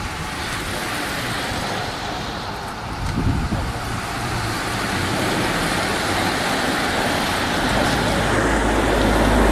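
Steady rush of road noise as a pack of racing bicycles passes, with a car's engine drawing closer and getting louder over the last couple of seconds.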